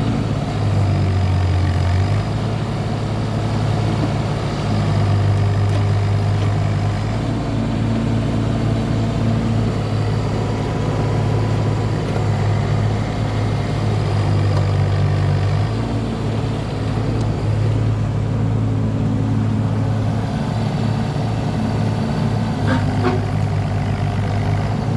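Mitsubishi MM30SR-3 mini excavator's three-cylinder Mitsubishi S3L diesel engine running steadily, its note shifting slightly every few seconds.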